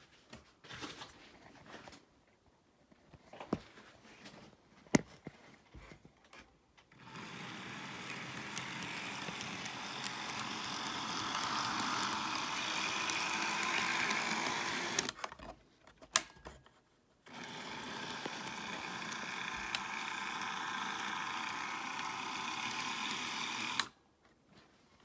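HO-scale model diesel locomotives running on the track, their small electric motors and wheels on the rails making a steady whir. Scattered sharp clicks come first, the whir drops out briefly in the middle, and it cuts off suddenly near the end.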